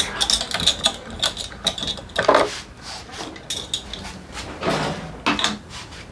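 Irregular light metallic clicks and clinks of tools and small metal parts being handled, with two fuller knocks about two and five seconds in.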